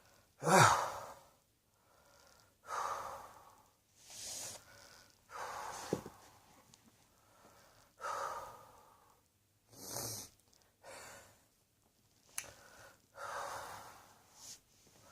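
A person's loud cough about half a second in, followed by heavy, audible breathing, in and out, about once every one to two seconds.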